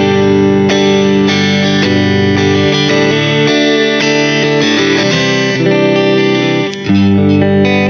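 Smiger LG2 Pro electric guitar played on its neck-and-middle pickup combination: strummed chords and picked notes ringing out in quick changes. A short break comes about seven seconds in, then a fresh chord.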